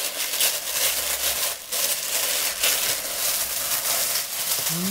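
Packaging being handled as a cardboard box is opened and its contents unpacked: continuous crinkling and rustling, with a short break about a second and a half in.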